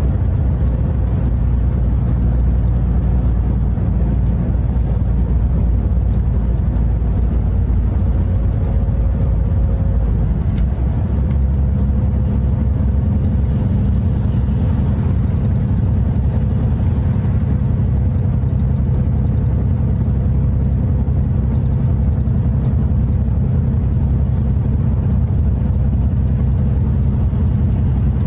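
Scania R580 truck's V8 diesel engine and road noise heard inside the cab at motorway cruising speed: a steady low drone with a faint steady whine above it. The engine note shifts slightly about ten seconds in.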